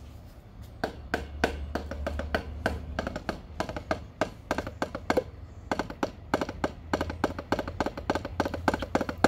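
Wooden drumsticks tapping on a basketball in quick, uneven runs of sharp taps with short pauses between runs, over a low steady hum.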